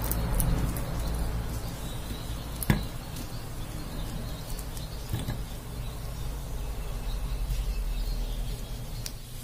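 Kitchen handling sounds of a knife and dates on a wooden board and a small ceramic bowl: a few light clicks, then one sharp knock a little under three seconds in and a softer one a couple of seconds later, over a steady low background hum.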